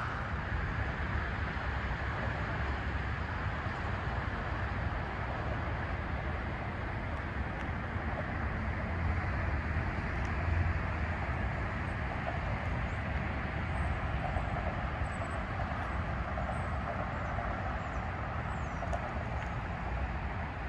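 Steady outdoor traffic noise, a continuous low rumble and hiss, with a few faint high chirps in the second half.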